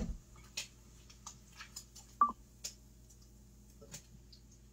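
Light clicks and knocks of kitchen items being handled, with one short electronic beep about two seconds in.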